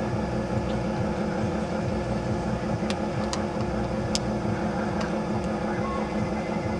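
A steady low machine hum that does not change, with a few faint clicks in the middle.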